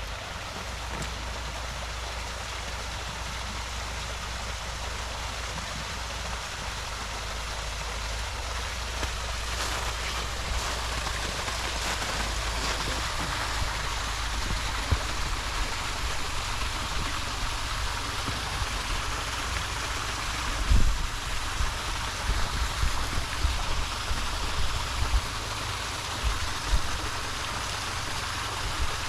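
Mountain stream rushing over rocks, a steady even wash of water. From about two-thirds of the way through, irregular low thumps on the microphone break in over it.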